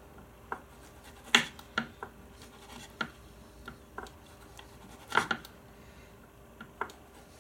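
Kitchen knife slicing a stick of salami on a wooden chopping board: about seven sharp, uneven knocks of the blade hitting the board, one per cut.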